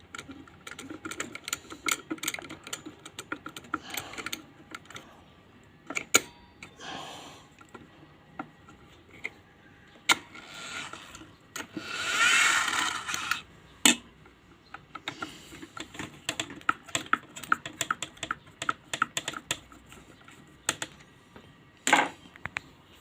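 Irregular small clicks, taps and knocks of hands and tools working on the casing of an automatic voltage regulator as it is opened up, with a longer scraping sound about twelve seconds in followed by a sharp knock.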